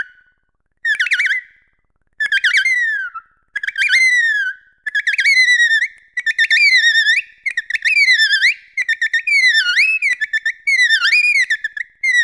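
Dolphin whistles: a run of whistles that sweep up and down in pitch, about one a second, coming closer together toward the end, with a few faint clicks between them.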